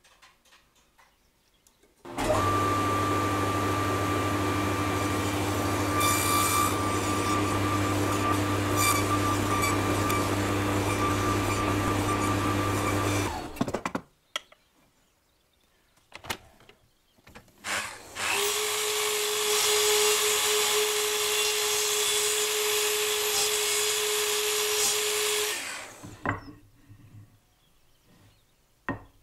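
Sliding mitre saw running for about eleven seconds while its blade makes shallow trenching cuts across an ash rail for a half-lap joint, then stopping abruptly; after a few light knocks it runs again for about seven seconds and winds down.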